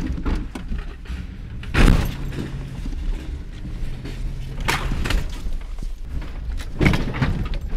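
An old full-size sedan's engine running under throttle as the car drives over a metal swing gate and its gate-operator arm lying on the ground, with loud thuds and metal crunches about two seconds in, midway and near the end.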